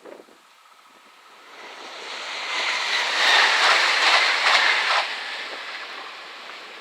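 A Z27500 electric multiple unit passing at speed over the level crossing. Its rushing noise builds, peaks for about two seconds with a few sharp clicks from the wheels, then fades.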